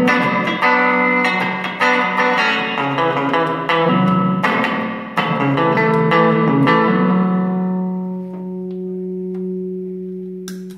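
Electric guitar played through a Mooer Shimverb reverb pedal into a small amp: chords struck about once a second with a washy reverb tail, then a last chord left to ring and fade from about 7 s. Near the end there is a sharp click as the pedal's footswitch is stepped on.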